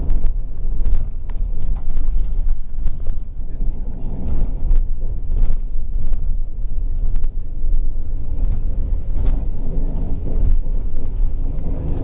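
City bus driving, heard from inside the cabin: steady engine and road rumble with frequent short rattles and knocks.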